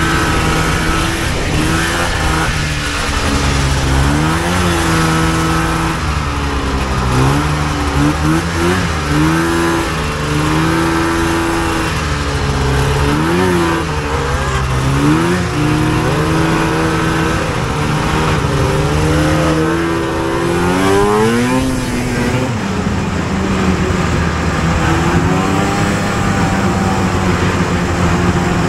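1983 Polaris Cross Country Indy snowmobile's two-stroke engine, an SLP 404 big bore breathing through K&N filters, running under way with its pitch rising and falling again and again as the throttle is worked. About three quarters of the way through it climbs in one long rise and then holds a steady higher note, with a rushing noise beneath throughout.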